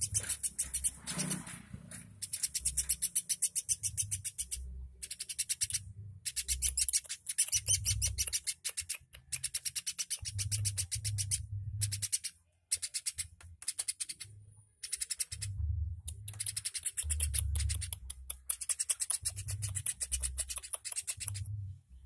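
Caged woodpecker calling in rapid, high-pitched rattling trills, one run after another with short breaks, over scattered low thumps.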